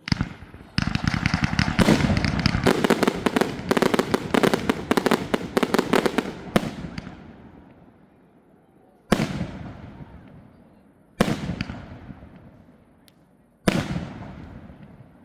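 Aerial fireworks: a dense, rapid volley of bangs and crackle lasts about six seconds and then dies away. After it come three single loud bangs a couple of seconds apart, each echoing away.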